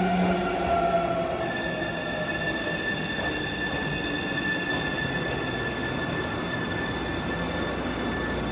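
Keio 1000 series train's Toyo Denki IGBT VVVF inverter and traction motors heard from inside the car. A whine falls in pitch, then about a second and a half in it switches to a steady high-pitched tone over the running noise of the wheels. This is the pattern of the train slowing under electric braking.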